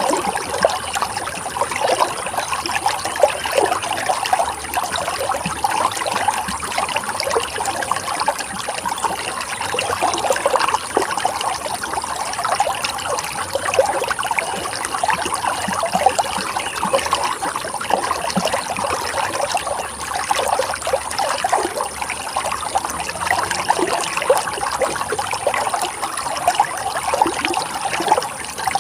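Running water trickling steadily, with a constant stream of small, quick splashes.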